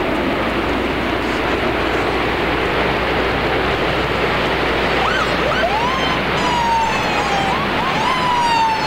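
Loud, steady rushing noise, with emergency-vehicle sirens coming in about halfway through: a few quick rising whoops, then long, slowly falling wails.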